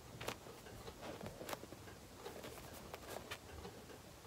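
Foam squishy toy shaped like a popcorn bucket being squeezed in the hands: faint soft rustling of the foam with a few sharp ticks.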